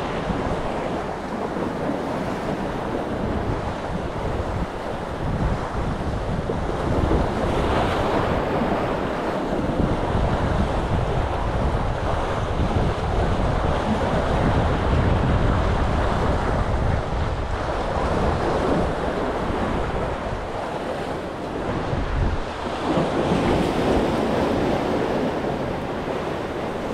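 Sea waves washing and breaking against a concrete tetrapod breakwater, surging and easing every few seconds, with wind buffeting the microphone.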